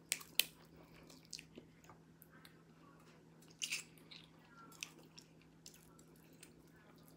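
Faint close-up eating sounds: chewing, with scattered clicks and snaps as snow crab leg shells are pulled apart by hand. The sharpest snaps come just after the start and about three and a half seconds in.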